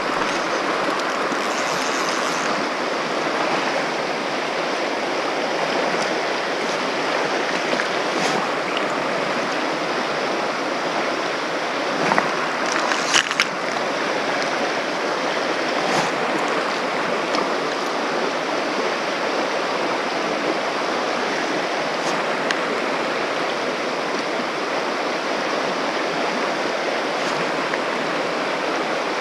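A shallow riffle of a small trout river runs steadily over stones. There is a short cluster of sharp clicks about halfway through.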